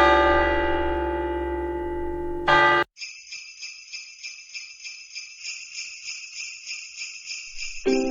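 Jingle bells shaken in a steady, rhythmic jingle for about five seconds, after a ringing musical chord that cuts off abruptly about three seconds in.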